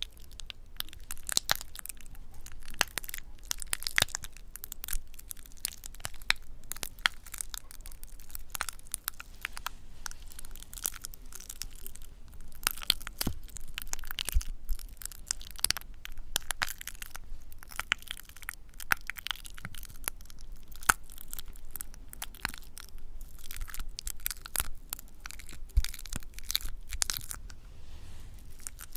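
Close-miked ASMR trigger sound: a continuous, dense stream of small sharp crackles and crunches, as of something being crushed or crinkled right at the microphone.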